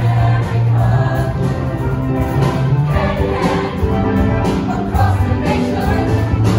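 A mixed high-school show choir singing an upbeat number in full voice over an instrumental accompaniment with a strong bass line and percussion.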